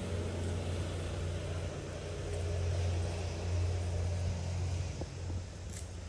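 A motor vehicle's low engine rumble, swelling in the middle and fading out near the end.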